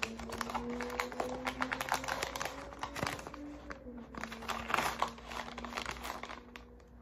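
Crinkling of a green plastic MRE pouch and rustling of its cardboard sleeve as the pouch is worked out of the sleeve by hand. The irregular crackles go on throughout, with a faint steady tone underneath.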